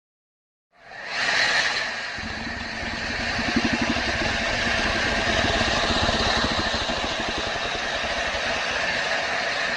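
Creature sound effect for the giant crocodilian Purussaurus: after a moment of silence, a long, low, rattling growl starts about a second in and holds steady.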